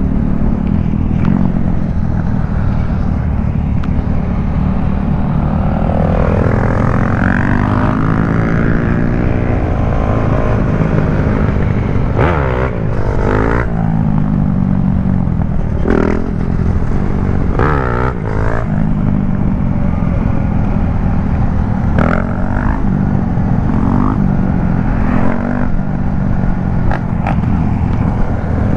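Motorcycle engine running under way, with heavy wind rush on the microphone. The engine pitch rises and falls with the revs, and a few brief sharp noises cut through in the second half.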